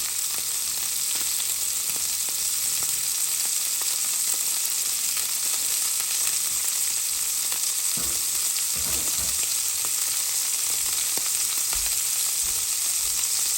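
Filet mignon steaks searing in hot olive oil in a cast-iron skillet: a steady sizzle with scattered small pops.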